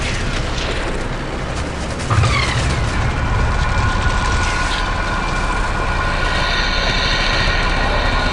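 Heavy vehicle engine rumbling steadily, with a metallic screech falling in pitch about two seconds in, then a steady high whine over the rumble.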